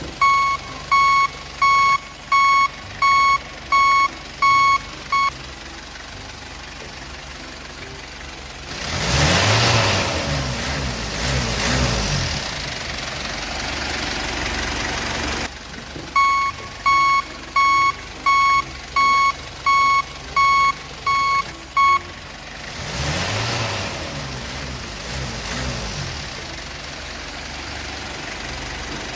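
Toy RC dump truck's electronic reversing beeper, a high beep about one and a half times a second, in runs of several seconds. Between the runs, twice, a small motor whines for about three seconds with a rushing hiss, its pitch dipping and rising again.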